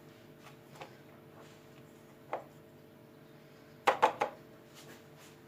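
Kitchenware being handled: a few light clicks and a knock, then three quick sharp knocks about four seconds in, over a steady low hum.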